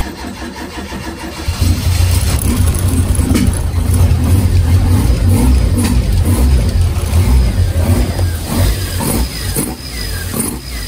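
Toyota AE86 Sprinter Trueno's 4A-GE twin-cam four-cylinder with individual throttle bodies, cranking and catching about a second and a half in, then running. A long-neglected engine starting up.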